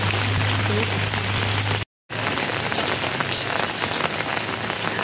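Steady rain falling on a wet paved street, with a steady low hum under it for the first two seconds. The sound drops out briefly about two seconds in.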